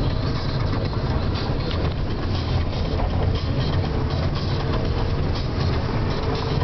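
Car engine and tyre rumble heard from inside the cabin as the car drives slowly along a stone-paved street. The low, steady rumble stays level, with no distinct events.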